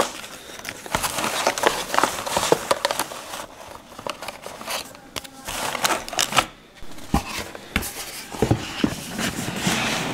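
Cloth drawstring bag and cardboard game-box parts being handled: irregular rustling and crinkling with light knocks of cardboard.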